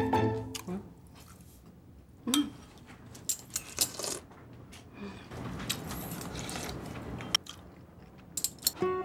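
Someone eating with a metal spoon: a few scattered clinks and taps of the spoon and soft chewing.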